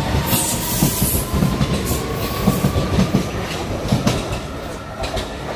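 Vienna U-Bahn train moving past the platform: a loud steady rush with repeated wheel knocks over the rails. A faint whine rises slowly in pitch over the first few seconds.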